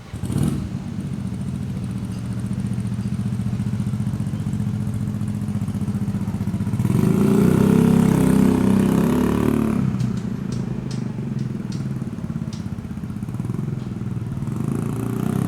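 A small engine starts up suddenly and runs steadily, getting louder for about three seconds around the middle before settling back, with a few sharp clicks near the end.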